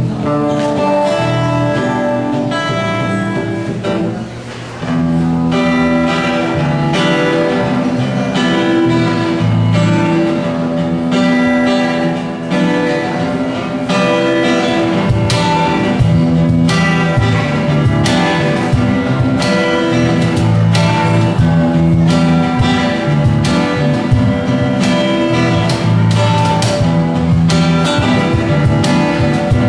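Acoustic band playing an instrumental passage: strummed acoustic rhythm guitar with lead guitar notes over bass, kept to a steady percussive beat. It drops briefly about four seconds in, then comes back fuller.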